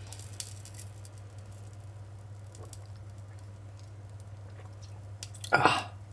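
Faint steady low hum with a few soft clicks, then near the end one short, loud breathy sound from a man drinking from a small ceramic cup.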